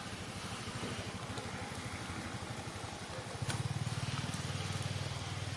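An engine running steadily at low revs, with a low pulsing hum that gets louder about three and a half seconds in, over a faint background hiss.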